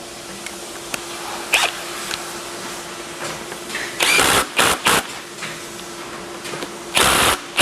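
Ratchet wrench with a 17 mm socket clicking in short bursts as mounting bolts are run down and tightened, the first burst about four seconds in and a second group near the end. A faint steady hum runs underneath.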